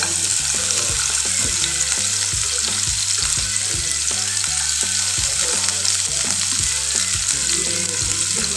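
Sliced onions sizzling in hot oil in a non-stick kadai, a steady frying hiss.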